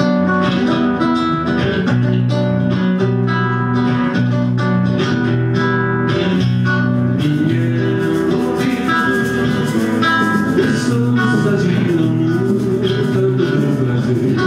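Live band starting a samba: guitar chords carry the intro, and percussion with cymbals comes in about seven seconds in.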